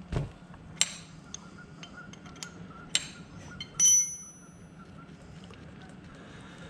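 Metal hand tools clicking and clinking at the motorcycle's oil drain plug as it is being loosened. A thump starts it, a few sharp clicks follow, and a single bright ringing clink comes about four seconds in.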